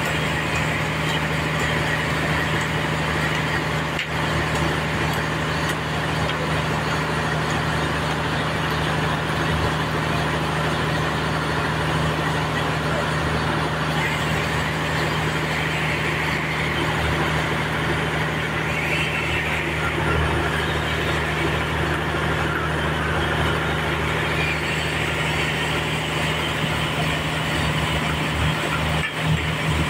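Sawmill running steadily with its saw cutting lengthwise through a trembesi (rain tree) log. A low, constant machine hum lies under the cutting noise, which swells and eases several times.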